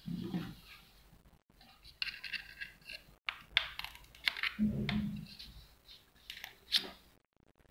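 Clicks, scrapes and light knocks of hands working on a cordless drill body, fitting clip leads onto its deep-set battery terminals. Two brief low hums, one at the start and one about halfway through.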